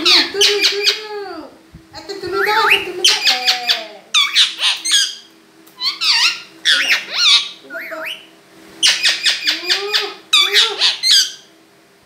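Indian ringneck parakeet squawking and chattering in loud bursts: rapid harsh rasping calls mixed with rising and falling whistles, broken by short pauses.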